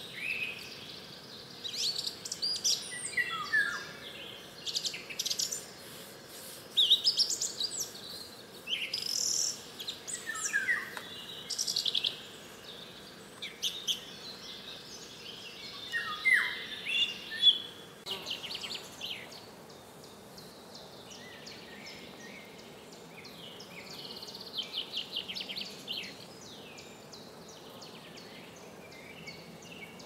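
Several songbirds singing, with quick high trills and repeated short phrases that sweep downward in pitch. The singing is busy for the first half and thins out in the second half.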